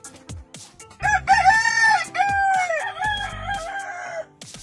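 A rooster crows once: a loud cock-a-doodle-doo of about three seconds, starting about a second in, its pitch bending up and down through several syllables and ending on a long wavering note.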